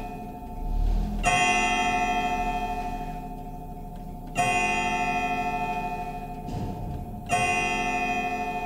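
Pendulum wall clock striking on its gong: three ringing strikes about three seconds apart, each slowly fading, with the clock's faint ticking underneath.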